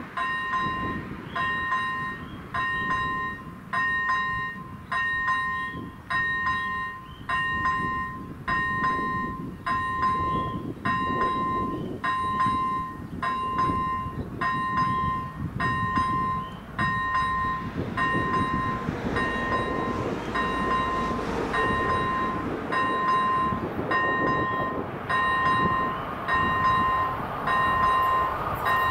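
Electronic warning bell of an AŽD 97 level crossing ringing, a two-toned ding repeating at an even pace while the red warning lights flash. A low rumble builds under it in the second half as a train approaches.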